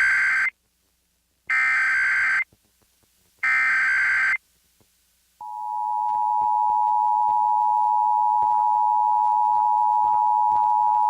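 Emergency Alert System SAME header: three warbling bursts of data tones, about a second each and two seconds apart, the first already under way. About five seconds in, the steady two-tone EAS attention signal begins and holds.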